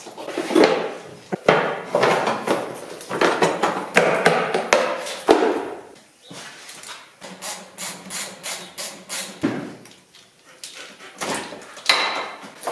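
Hand tools knocking and clattering on parts in a car's engine bay as components are taken off. A little past the middle comes a run of even knocks, about four a second.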